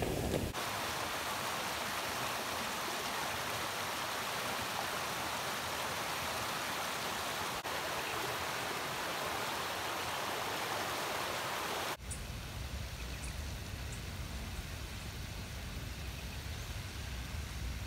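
Small bush creek rushing over rocks and little rapids, a steady even rush of water. About 12 s in it cuts off sharply to quieter bush ambience with a low rumble and a few faint high ticks.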